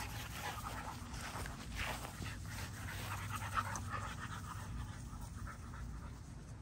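XL American Bully puppies panting.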